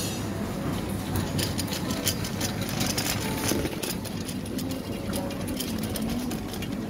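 Busy supermarket ambience: a steady low rumble with many small clicks and knocks from a plastic shopping basket being carried along the aisles.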